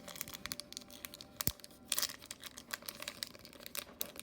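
Foil wrapper of a Pokémon Sword & Shield Darkness Ablaze booster pack being torn open and crinkled by hand: a run of crackles, with a sharp click about one and a half seconds in.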